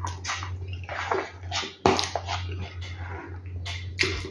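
A person eating close to the microphone: a spoon scraping and scooping food in a basin, with wet chewing and mouth sounds and an occasional sharp click of the spoon.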